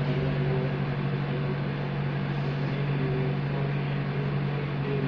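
Steady low hum with an even hiss over it, unchanging throughout: constant machine or electrical background noise in the room.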